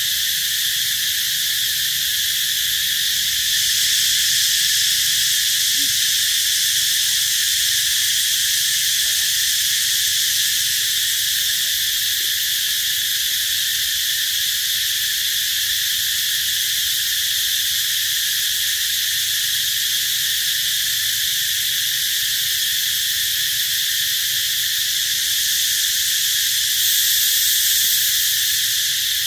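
Loud, steady chorus of insects: a continuous high-pitched buzzing that runs on without a break.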